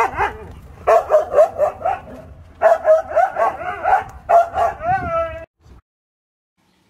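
Siberian husky barking and yipping in quick runs of pitched barks, ending in a drawn-out whining note about five seconds in; the sound then cuts off abruptly.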